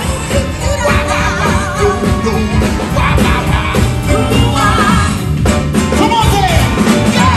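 A male vocalist singing live into a microphone with a wavering, sustained voice, backed by a live band and amplified through a concert sound system.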